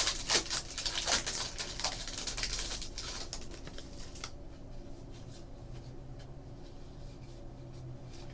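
Trading cards handled and a foil card pack crinkled and torn open, a dense rustling for the first few seconds that then dies away to a faint low hum.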